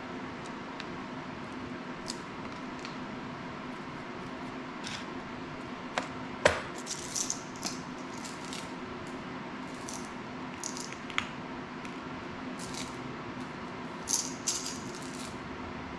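Small parts being handled by hand at a work table: scattered light clicks, one sharper tap about six and a half seconds in, and short dry rustles, over a steady room hum.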